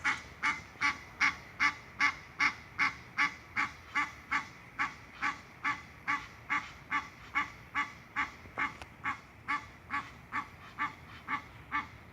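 Egyptian goose honking in a long, steady series of short harsh calls, about two and a half a second.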